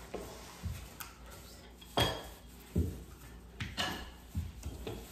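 Wooden rolling pins working dough on a stone countertop, giving a handful of irregular hard knocks and clunks spaced about half a second to a second apart.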